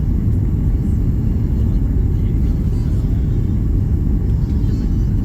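Cabin noise inside a Boeing 737 MAX 8 during its landing: a steady, loud, low rumble.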